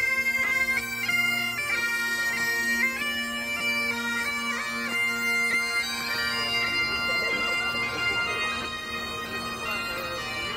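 Bagpipes playing a melody over a steady drone.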